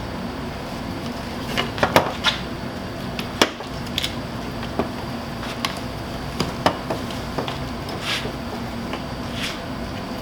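Irregular clicks and knocks of a replacement liftgate door handle being handled and fitted into the door by hand, with a couple of brief scrapes near the end, over a steady low hum.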